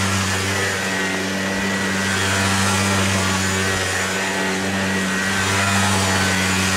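Small 49cc Aeon mini ATV engine running at a steady pitch under throttle while the quad circles on grass.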